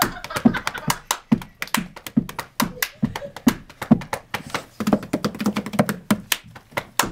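Hand percussion played on a boy's body: a steady beat of low thumps, about two a second, with quicker sharp taps between them.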